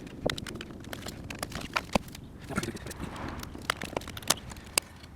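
Irregular clicks and knocks of a VW Golf Mk5 door lock unit being worked loose and taken out of the door after its two bolts are undone.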